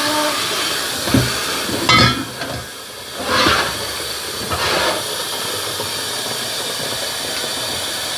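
Kitchen tap running steadily into a plastic gallon jug as it fills, with a few knocks of the jug and container being handled in the first five seconds.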